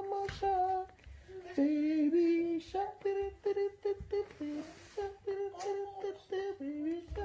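A high voice humming a tune in short, repeated notes, with a few longer held ones.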